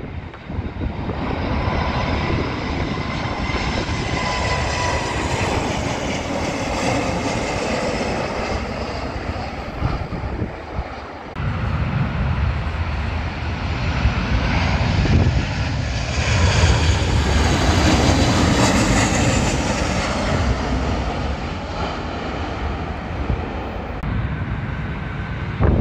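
Twin-engine jet airliners on final approach passing overhead: a steady engine rumble with a whine that slowly falls in pitch. The sound breaks off a little over ten seconds in, and a second jet's approach follows, loudest about two-thirds of the way through.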